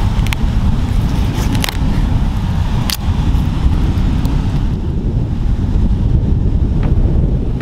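Wind rumbling steadily on the microphone, with a few sharp clicks as a filleting knife cuts into the tough skin of a red bait sea squirt.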